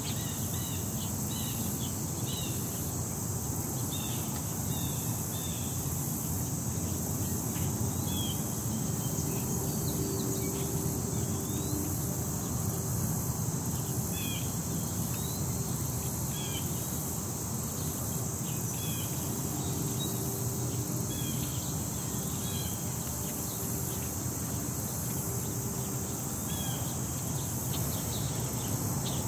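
Outdoor ambience: wind rumbling on the microphone under a steady high hiss, with many short bird chirps scattered throughout.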